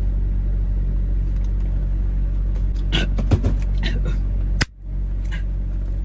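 Steady low hum of a parked car idling with the air conditioning running, under drinking through a straw. About three seconds in there is a short cluster of gulps and a brief vocal sound, and a little past four and a half seconds a sharp click with a moment's dropout.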